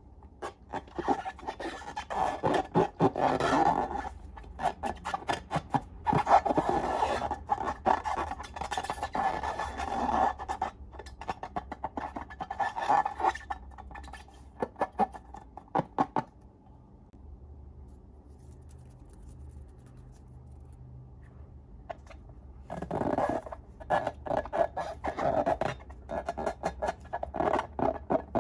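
Slime being squished and worked by hand, making sticky crackling and popping in bursts of a few seconds. It quietens for several seconds past the middle, then starts again.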